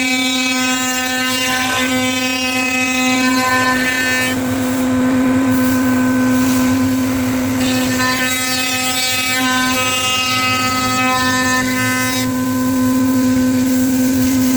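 Spindle of a 5-axis CNC machine running at a steady speed: a loud, constant whine with many overtones. About four seconds in, and again near the end, a rougher rushing noise rises over it while the upper overtones fade.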